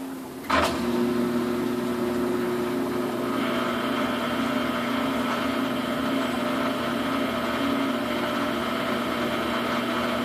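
Samsung washing machine loaded with duvets starting to spin: a sharp click about half a second in, then a steady motor whine and hum as the drum turns while water is pumped out, with a higher whine joining a few seconds later.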